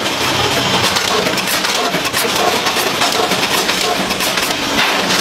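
Food packaging machinery running: a steady mechanical din full of rapid, irregular clicks and clatter.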